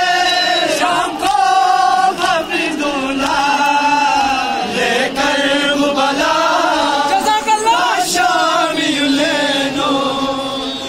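Crowd of men chanting a Muharram mourning lament (noha) in unison, a drawn-out sung melody, with occasional sharp slaps of hands beating on chests.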